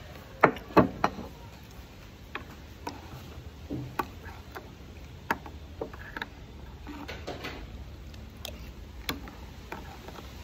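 A glass bowl of açaí set down on a wooden table with two sharp knocks about half a second in, then a metal spoon clinking against the glass bowl in scattered light ticks as the açaí is stirred and spooned, with quiet eating sounds.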